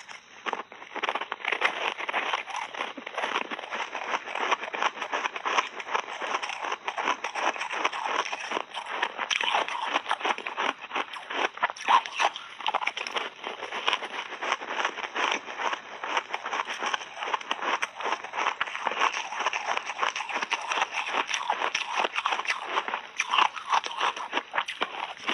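Ice being bitten and chewed close to the microphone: frozen mixed-berry ice balls crunched between the teeth in a rapid, continuous run of crunches and crackles.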